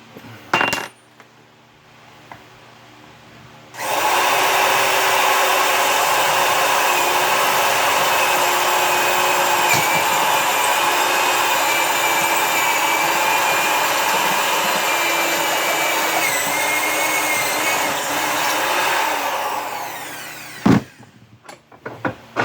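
Electric drill running steadily, boring a hole through flattened copper pipe, winding down near the end. A short knock comes just before it starts and another just after it stops.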